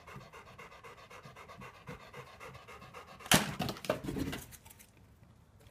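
A dog panting fast and steadily. About three seconds in comes a loud thump, then a few lighter knocks as its paws hit the wooden deck boards while it jumps about.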